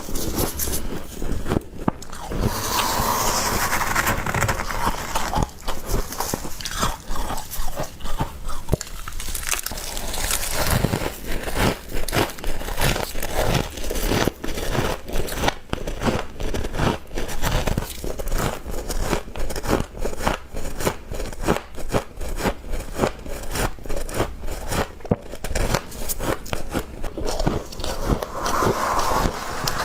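Frost being bitten and chewed: a dense run of rapid, crisp crunches, with a steadier rasping stretch a couple of seconds in and again near the end.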